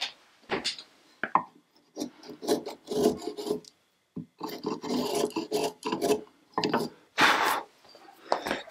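Steel chisel paring and scraping wood in a series of irregular strokes, some short and sharp, a few drawn out for about a second.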